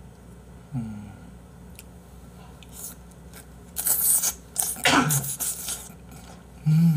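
A man eating a hot mouthful of spicy braised chicken and rice, blowing and sucking air noisily through his open mouth in a few loud puffs partway through. There are short hummed "mm" sounds about a second in and near the end.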